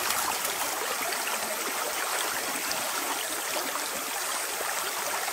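A small creek running in a steady trickling hiss, with faint scattered ticks over it.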